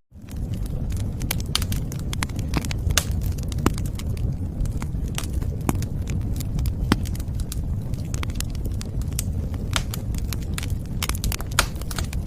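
Wood fire burning with a steady low roar and frequent sharp crackles and pops. The sound cuts out for a split second right at the start.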